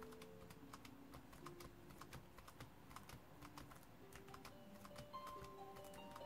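Laptop keyboard keystrokes, a quick, irregular run of soft taps, several a second, as text is typed into a list. Faint background music with held notes plays underneath and grows a little fuller near the end.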